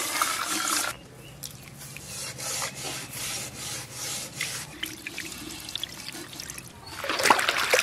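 Water poured from a vessel into a steel bowl of raw rice for about the first second, then quieter swishing and rubbing as a hand washes the rice in the water. Near the end the cloudy rinse water is poured off the bowl and splashes onto the stone, louder again.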